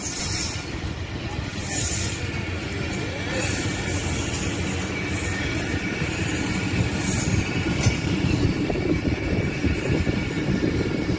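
Passenger train coaches rolling past on the track: a steady rumble of wheels on rail, with brief high wheel squeals now and then.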